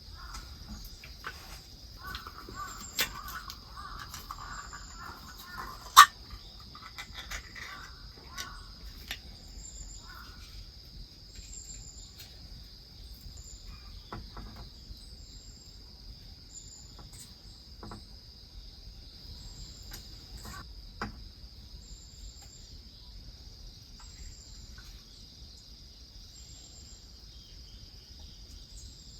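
Steady high-pitched chorus of autumn crickets, with a short chirp repeating every second or two above it. A few sharp clicks cut through, the loudest one about six seconds in.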